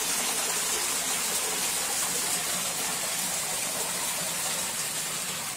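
Muddy floodwater gushing and splashing up around a toilet, a steady rushing of water.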